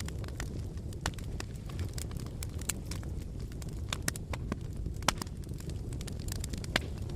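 Fire crackling, with irregular sharp pops and snaps, a few louder than the rest, over a steady low rumble.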